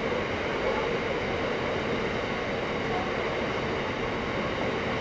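Freight train of red open box wagons rolling past at close range, a steady, unbroken rumble of wheels on the rails.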